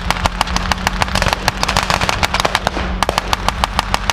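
Blank-fired rifles and guns in a mock battle: many sharp shots in fast, irregular succession, several a second, with a steady low rumble underneath.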